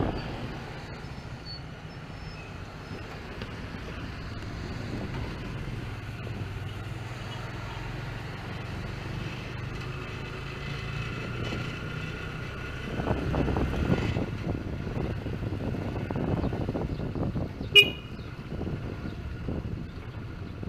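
A motor vehicle engine running steadily amid road traffic, with one short, loud horn toot near the end.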